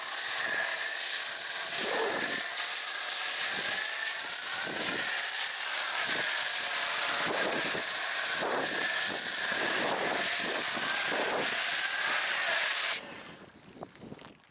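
Adam's foam cannon on a pressure washer spraying snow foam: a loud, steady hiss that cuts off suddenly near the end.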